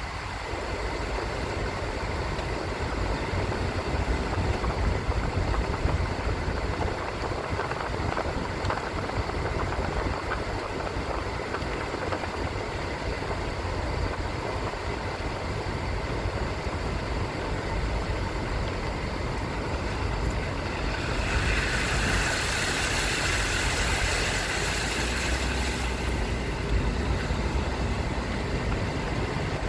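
Steady rumble of a car on the move, engine and tyre noise. About two-thirds of the way through, a louder hiss comes in for about five seconds, then drops away.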